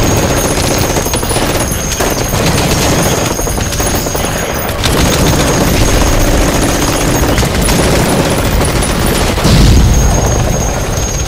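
Continuous rapid gunfire, with a heavy low boom about nine and a half seconds in.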